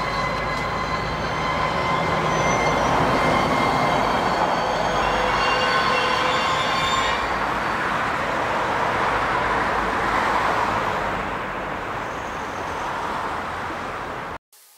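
Freight train of intermodal wagons loaded with swap bodies rolling slowly past, with a steady rumble of wheels on rails and high squealing tones from the wheels over the first half. The sound cuts off suddenly near the end.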